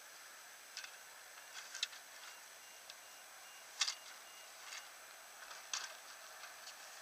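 Quiet steady hiss with a few scattered sharp clicks and knocks, the loudest about four seconds in: handling noise from the moving camera.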